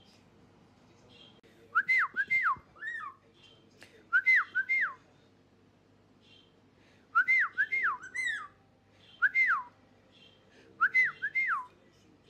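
Pet parrot whistling in short repeated phrases: five bursts of one to three clear notes, each swooping up and gliding back down. Budgies chirp faintly in the background.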